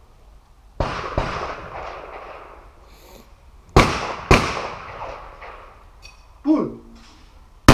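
Over-and-under shotgun fired twice in quick succession, about half a second apart; each sharp report is the loudest sound and trails off with a ringing echo. About a second in come two quieter bangs, also half a second apart, and a short voice and another sharp crack come near the end.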